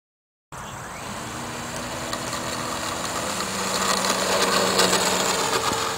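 450-size electric motor and 10x8 propeller of an E-flite Taylorcraft 450 radio-controlled model plane running at power on its takeoff roll. It starts abruptly about half a second in and grows louder.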